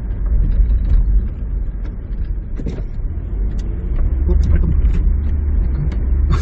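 Cabin noise of a 2003 SsangYong Rexton on the move: a steady low engine and road rumble while cruising at low revs, under 2000 rpm. It grows a little louder about two-thirds of the way in.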